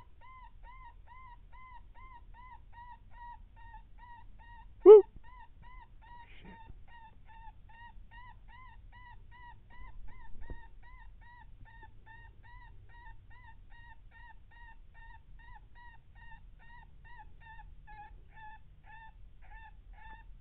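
Electronic predator call playing a rapid, unbroken series of short squealing distress notes, about three a second, used to lure coyotes. About five seconds in comes one loud, short yelp.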